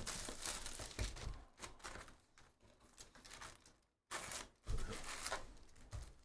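Plastic shrink wrap crinkling and tearing as it is stripped off a trading-card hobby box, then cardboard rustling as the box lid is opened and the foil packs are handled, with a brief break about four seconds in.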